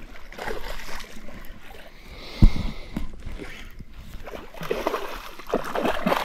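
Handling noise and water splashing as a freshly landed tiger fish is dealt with, with one sharp thump about two and a half seconds in as the loudest sound.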